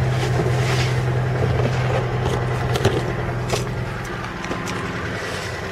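VAZ-2101 Zhiguli four-cylinder petrol engine idling with the choke still pulled, heard inside the cabin, with knocks and rustling as someone climbs out. Its steady hum fades about four seconds in.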